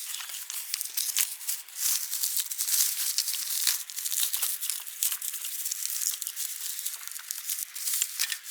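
Plastic bubble wrap and packaging being handled and pulled off, a continuous crinkling and crackling with many small sharp snaps.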